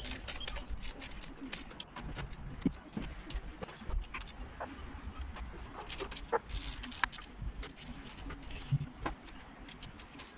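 Irregular small metallic clicks and taps as hands work the bolts on a cast-aluminium individual-throttle-body intake, doing them up gently, over a low rumble.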